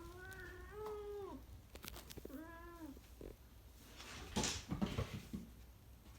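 A domestic cat meows twice: a drawn-out meow lasting about a second and a half, then a shorter one. About four seconds in comes a louder burst of scuffling and knocking.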